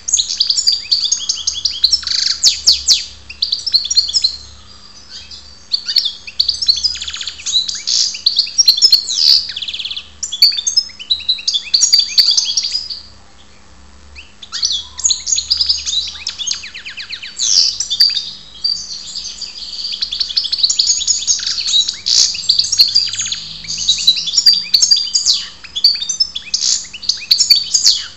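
Caged European goldfinch singing: fast, high runs of short notes in phrases of a few seconds, broken by brief pauses, the longest about halfway through.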